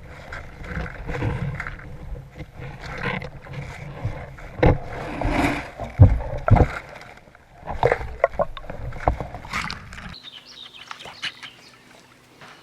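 Muffled rumbling and knocking, heard from inside a GoPro's waterproof housing as the magnet rig is dragged through water and weed, with several sharp clunks. About ten seconds in it cuts to a faint steady hum.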